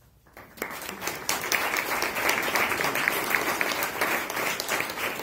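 Audience applauding. The clapping starts about half a second in and quickly swells into dense, steady applause.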